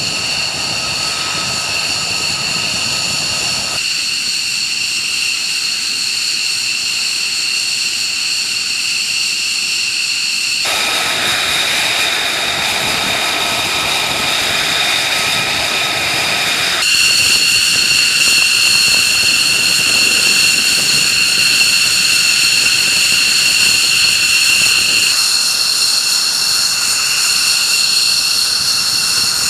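F-15E Strike Eagle twin jet engines running at taxi power: a steady high whine of several tones over a hiss. The sound changes abruptly four times as the shots change.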